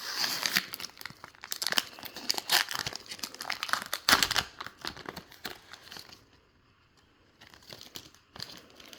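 Wrapper of a trading-card pack crinkling and tearing as it is opened, with dense crackling for about six seconds, then dropping to faint handling of the cards.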